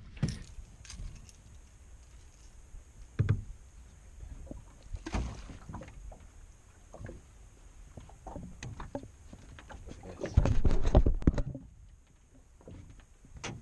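Scattered knocks and clunks against the hull of a small metal fishing boat as a landed bass is handled and released, with a louder rush of noise lasting about a second some ten seconds in.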